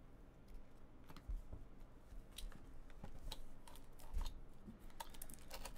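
Trading cards and their packaging being handled: light scattered clicks and scrapes of card stock and plastic, growing busier near the end.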